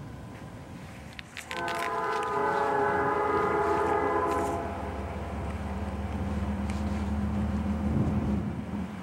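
Air horn of a Norfolk Southern GE ES44AC diesel locomotive sounding one long blast, a chord of several steady tones, starting about a second and a half in and lasting about three seconds. After it the approaching locomotive's diesel engine runs with a steady low drone and rumble.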